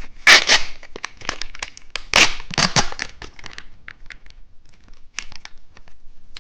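Plastic wrapper of a cheese stick snack crinkling and tearing open in a run of rustles and crackles. There are two louder rips, one just after the start and one about two seconds in, and it grows sparser after about four seconds.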